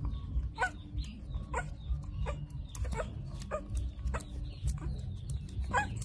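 Young puppies suckling from a milk bottle, with repeated short high squeaks and whimpers and wet clicking sounds from their mouths at the teat, over a low steady rumble.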